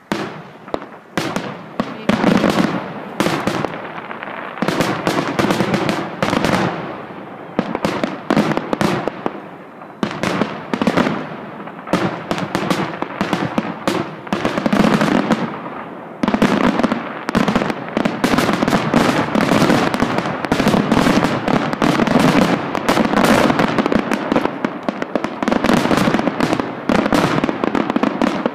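Fireworks finale: aerial shells bursting in rapid, overlapping succession, a dense barrage of bangs with only brief lulls.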